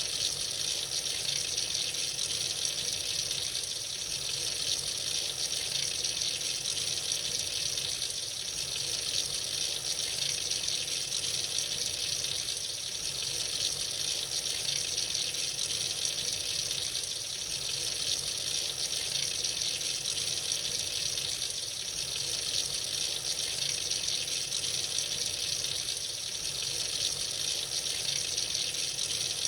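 Tap water running steadily into a sink, a continuous even splashing gush.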